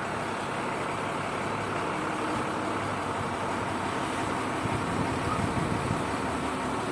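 Steady running of a vehicle engine, a tow truck's idle while the car is unloaded, with an even low hum.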